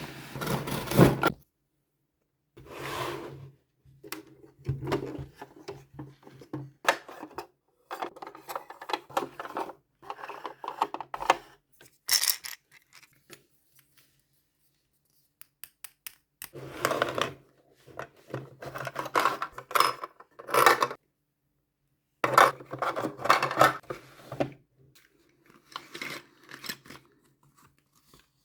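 Hands unpacking a toy refrigerator: bursts of rubbing, scraping and sharp clicks from handling the toy and its packaging, with short pauses between and a longer pause about halfway through.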